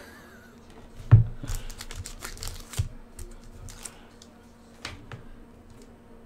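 Hands handling trading cards and a clear plastic card sleeve: a thump about a second in, then a run of light clicks and rustles.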